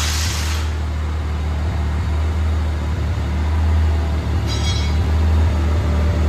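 A steady low mechanical drone, with a hiss of air that cuts off about half a second in and a brief faint high rattle near the end.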